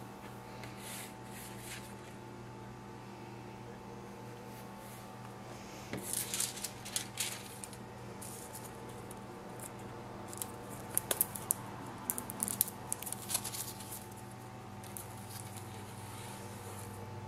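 Sheets of thin metallic stamping foil and paper crinkling and rustling as they are handled and laid together, in bursts about six seconds in and again from about ten to thirteen seconds, over a steady low hum.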